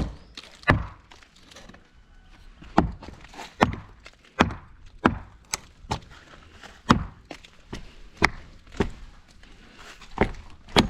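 Timber being struck with a tool again and again as nailed boards are knocked loose for stripping: about a dozen sharp wooden knocks, irregularly spaced, with short pauses between.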